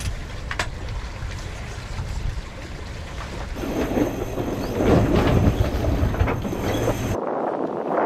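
Wind buffeting the microphone and water rushing past the hull of a sailboat under way, a steady rumbling noise that grows louder in the middle, with one sharp click about half a second in.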